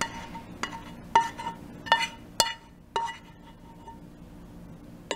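A spoon knocking and clinking against a ceramic bowl as it scoops sauce: about six sharp clinks in the first three seconds, each ringing briefly, then one more near the end.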